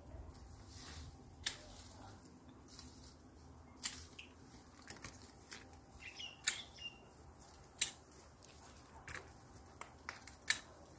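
Hand pruning shears snipping the stems of mandarins as the fruit is clipped from the tree: a series of short, sharp clicks about every second or two.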